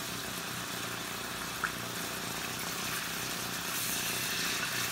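Steady sizzling of thin beef steaks searing in plenty of butter, growing a little brighter near the end, with one short click about a second and a half in.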